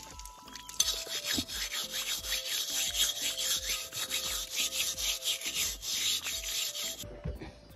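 A hammered aluminium pot being scrubbed by hand, a scratchy rubbing of repeated back-and-forth strokes. It starts about a second in and stops shortly before the end.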